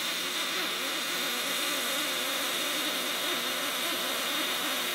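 Pulsed MIG welding arc on aluminum from an HTP Pro Pulse 220 MTS with a compact gun, running as a steady, even hiss while a bead is laid along the frame joint.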